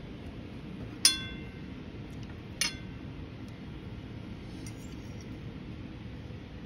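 Two sharp, ringing clinks of dishware, the first about a second in and louder, the second about a second and a half later, over a steady low background hum.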